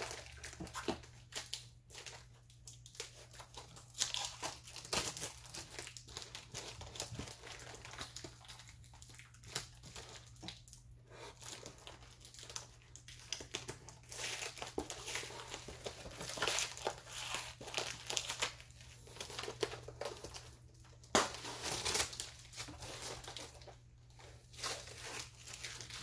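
Crinkling and tearing of a taped white mail package being picked and pried open by hand, in irregular bursts of rustling, with one sharp snap about 21 seconds in.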